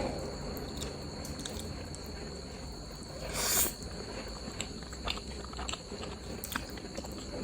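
A person chewing and eating close to the microphone: small wet clicks and smacks, with one louder noisy burst about three and a half seconds in.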